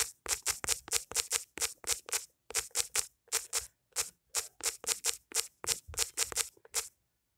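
Rapid key-press clicks of typing on a smartphone's on-screen keyboard, about four taps a second, stopping about seven seconds in.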